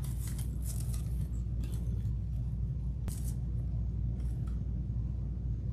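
Light handling noise: soft rustles and a few small clicks as artificial floral picks and a hot glue gun are worked into a grapevine wreath. A steady low hum runs underneath throughout and is the loudest part.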